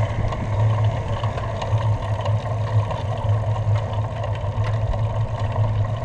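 Wind buffeting the microphone of an action camera on a moving bicycle: a steady, fluttering low rumble.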